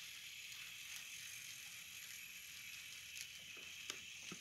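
Model Rio Grande SD50 diesel locomotive's electric motor and gears whirring faintly as it runs along the track, a steady high whine. A few light clicks come near the end.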